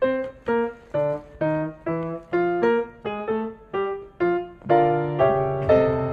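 Background music: a light piano melody of short, separate notes, about two a second, over a bass line, with fuller, longer-held chords near the end.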